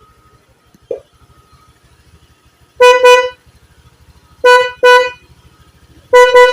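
Single aftermarket snail horn on a Honda Vario scooter sounding loudly in short blasts of one steady pitch: a longer blast about three seconds in, two quick toots a second and a half later, and another blast starting near the end.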